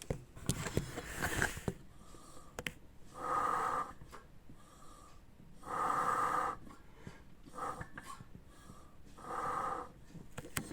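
Air hissing and wheezing from a leak in the Taiga 500 snowmobile's sealed two-stroke engine crankcase as pressure and vacuum are pumped into it. It comes in three main bursts about three seconds apart, with fainter ones between. The leak is near the variator, which the mechanic takes for most likely the variator-side crankshaft seal.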